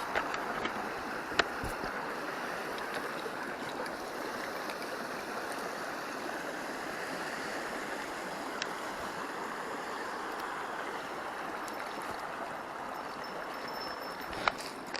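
Steady rush of flowing stream water, with a sharp small knock about a second in and another near the end.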